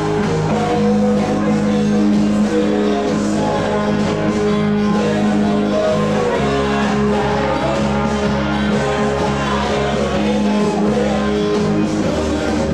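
Live rock band playing, electric guitar to the fore over a steady bass line that changes notes about six seconds in.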